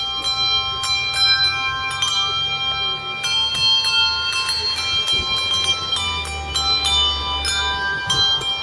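Handbells rung as a duet: a tune of struck notes, each strike ringing on clearly so that several pitches overlap and sustain together.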